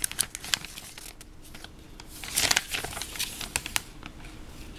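Pages of a Lego instruction booklet being turned and handled, with light paper rustling and small clicks and a louder rustle about halfway through.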